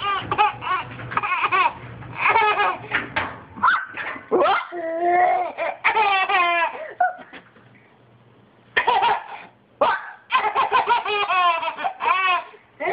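A toddler laughing in repeated bursts of high-pitched giggles and belly laughs, with a short break of about a second and a half after the middle.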